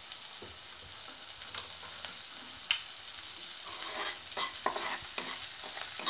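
Spice paste of ginger, garlic, turmeric and chilli sizzling in hot mustard oil in a nonstick frying pan, being fried to cook off its raw smell. A plastic spatula scrapes and stirs the paste, in quick repeated strokes from about halfway through.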